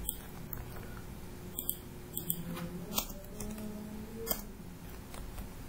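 Scattered sharp clicks of a computer keyboard and mouse, about eight in all, some in quick pairs, over a faint steady hum.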